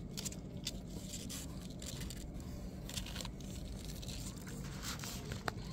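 Scraping and rustling of a hand and newborn kittens moving on the cardboard floor of a box, a scatter of short scratchy clicks.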